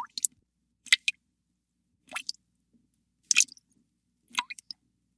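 Water drops dripping into water, one plink about every second, some followed by a smaller second drop. Each drip is short and sharp, with a quick rise in pitch.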